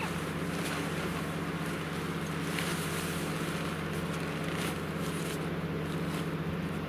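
Nylon fabric of a DOD one-touch pop-up fishing tent rustling in short bursts as the collapsed tent is pulled up and folded. Under it runs a steady low hum, the loudest sound throughout.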